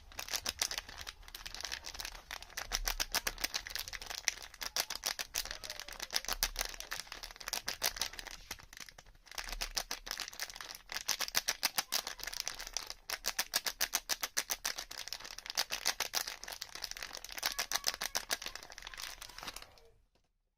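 Close-miked rapid crisp crackling and clicking from soap being handled, in runs of quick strokes several times a second with brief pauses, stopping shortly before the end.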